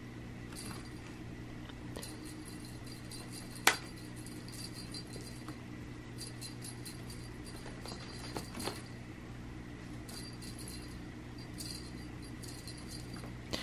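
Faint scattered light clinks and ticks from a cat batting and chasing a toy mouse on a string across carpet, over a steady low room hum. One sharper click comes a little under four seconds in.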